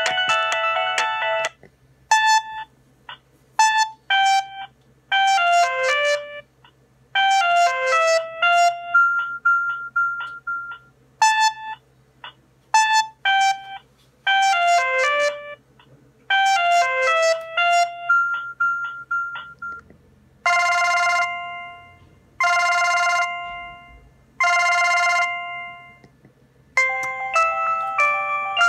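Samsung SGH-C450 mobile phone playing its built-in ringtones through its loudspeaker, one after another as the ringtone list is scrolled: short synthesized melodies. About two-thirds of the way in, one tone rings four times with short gaps, then another melody starts.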